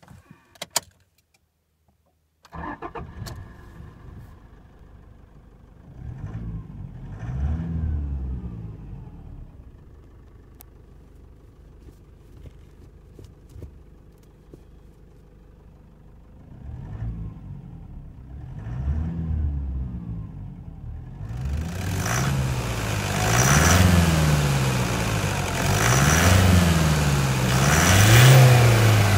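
Toyota Hilux's 2.5 L 2KD-FTV intercooled turbo-diesel four-cylinder: a few clicks, then the engine catches at once about two and a half seconds in and settles to idle. It is revved several times in short rises and falls. Heard from inside the cab at first, then, for the last several seconds, louder and brighter with the bonnet open.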